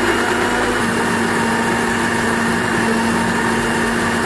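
Electric blender running steadily, its blade grinding sliced shallots, garlic, chillies and tomato with oil into a smooth spice paste.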